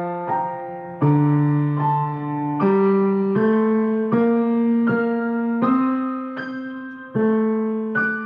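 Solo piano playing a slow prelude, with chords struck about every three-quarters of a second and each left to ring and fade.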